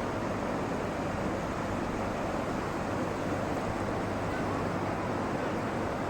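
Steady, even rushing noise of fast-flowing river water, the Ganges.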